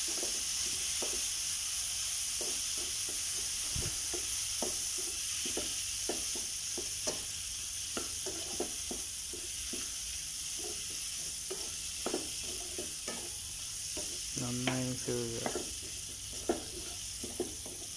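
Ketchup-coated chicken pieces sizzling steadily in a metal pan over high heat, stirred with a utensil that scrapes and taps against the pan at irregular moments.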